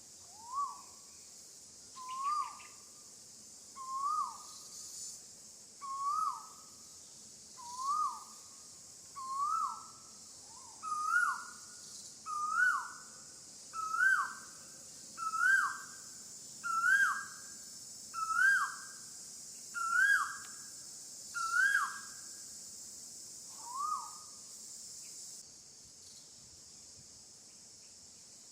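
An animal call repeated about once every one and a half seconds, each a short whistled note that rises then drops, the series growing louder and slightly higher before stopping a few seconds from the end. Under it runs a steady high insect drone that cuts off near the end.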